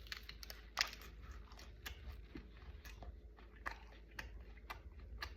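A person biting and chewing a slice of bacon chicken ranch pizza close to the microphone: faint, irregular little crunches and clicks of chewing.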